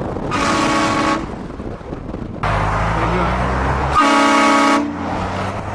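Train horn blasted twice, each blast a steady multi-note chord lasting just under a second, the second about four seconds in. Between the blasts, a loud low rumble.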